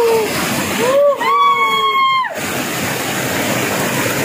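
Rushing water of a small river cascade pouring over rocks, loud and steady. A man's voice lets out a long, held whoop from about one second in to just past two seconds.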